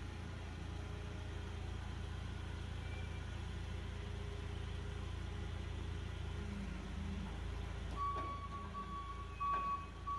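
Forklift engine running steadily at low revs while it lifts and sets down a loaded pallet. About eight seconds in a steady high-pitched tone starts, and a couple of knocks come near the end as the load meets the platform.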